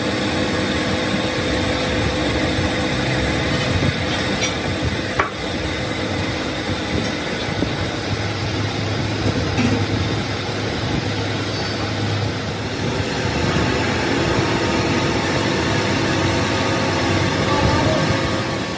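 A lathe turns a truck flywheel while a belt-driven tool-post grinder grinds its friction face, making a steady machine drone with the hiss of the grinding wheel on steel. There is one sharp tick about five seconds in.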